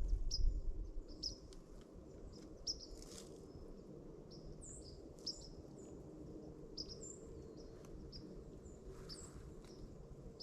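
Small birds chirping: many short, high chirps repeating irregularly over a steady low background, with a brief low rumble in the first second.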